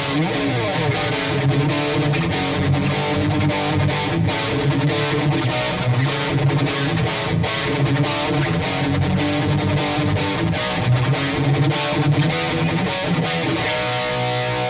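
Epiphone Les Paul Custom electric guitar played continuously with a distorted tone.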